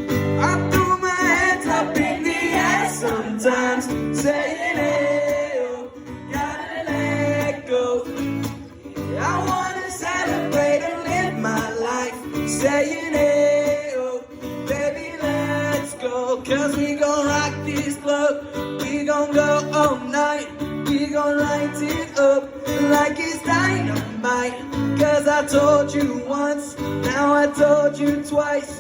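Live singing to an acoustic guitar strummed in a steady rhythm: a pop song sung over a repeating chord pattern.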